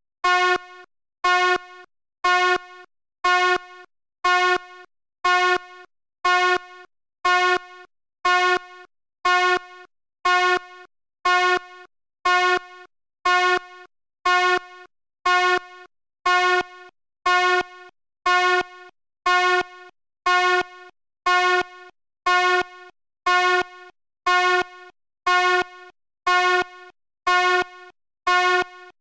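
Fire alarm horn sounding a harsh buzzing tone in rapid, evenly repeated pulses, about three every two seconds. Each pulse cuts off into a short, fainter tail.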